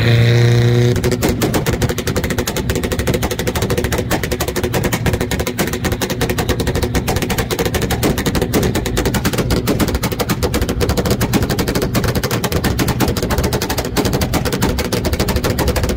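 Car engine held on a two-step launch-control rev limiter: after a steady rev for about a second, the exhaust bangs and pops rapidly and continuously as the limiter cuts ignition, like machine-gun fire.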